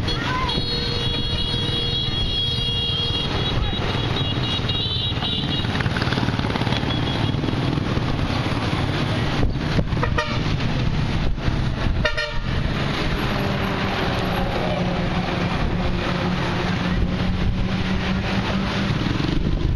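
Road traffic and wind rumbling on the microphone, with a vehicle horn sounding on and off during the first five seconds. Later, a steady engine hum passes.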